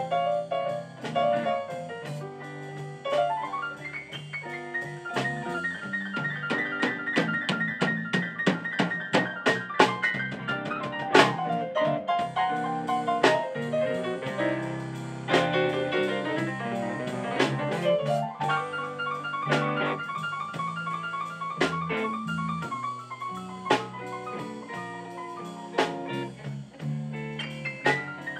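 Live blues band playing an instrumental break with keyboard, electric guitar and drum kit, the keyboard carrying a running melodic line over a steady beat.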